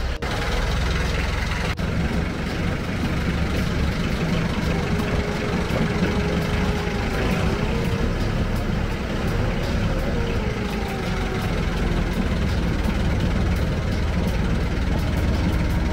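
An engine running steadily under a constant rush of noise, heard from aboard the craft it drives.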